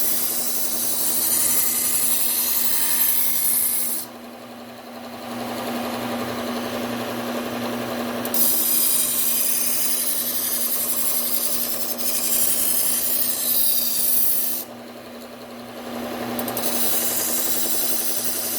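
Bucktool low-speed belt sander running with a steady motor hum while a Henckels kitchen knife's edge is ground against the abrasive belt in passes to sharpen it. The loud grinding stops twice, about four seconds in and again near fifteen seconds, leaving only the sander running, then resumes.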